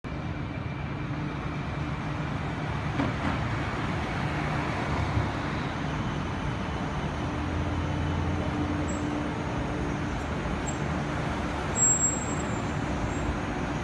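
Streetcar pulling into a stop, its electric drive and wheels making a steady hum with a few held tones over street traffic. A brief loud sound comes near the end as it halts beside the platform.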